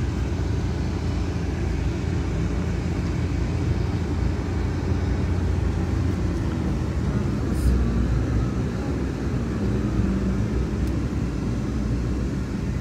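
Steady road and engine noise heard inside a moving car.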